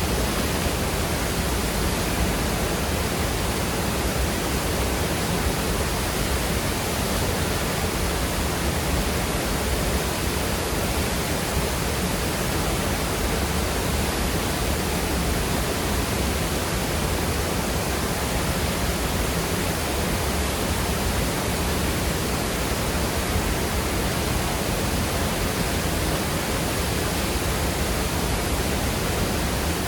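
Waterfall pouring into a rushing creek: a steady, even roar of falling and rushing water over rocks.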